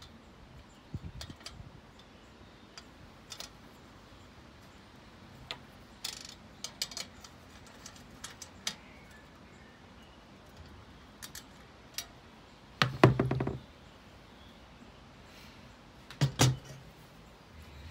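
Glass shade panels and their metal frame of a small chandelier being handled: scattered light clicks and clinks, with two louder rattling knocks about two-thirds of the way through and again near the end as the shade is moved and lowered onto the table.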